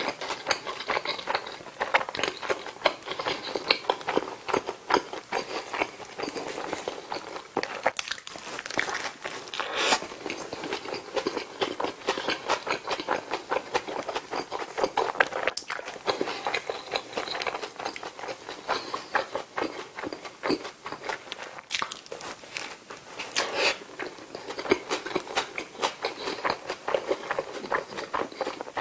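Close-miked chewing of a bulgogi burger: a continuous run of wet mouth clicks and smacks with soft crunching, and a few louder smacks spread through.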